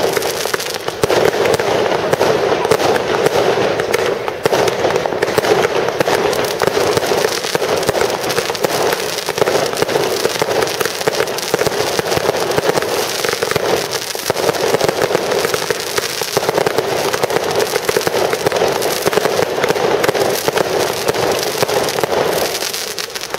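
Aerial fireworks display: a dense, continuous barrage of rapid bangs and crackles from many shells and comets going off together, easing off near the end.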